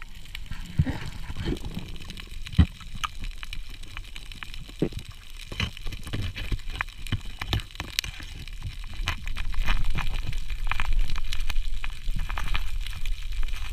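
Underwater sound through a diver's camera housing: scattered sharp clicks and crackles over a low rumble of water movement, which swells about ten seconds in.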